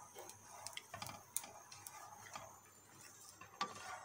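Fresh sweet corn kernels dry-roasting in a hot nonstick frying pan while a wooden spatula stirs them: scattered, irregular ticks and small pops as the kernels crackle and jump in the heat, with a few louder clicks.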